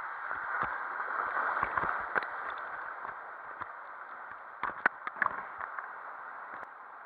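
Water rushing through an enclosed water-slide tube as a steady hiss, then splashing as the rider drops into the pool. A cluster of sharp knocks and splashes comes about two-thirds of the way in, and the rushing fades toward the end.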